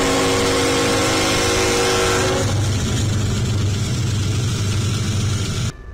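Locomotive passing close: a held horn chord for about two and a half seconds over a deep diesel engine rumble, which carries on after the horn stops. The sound cuts off abruptly near the end.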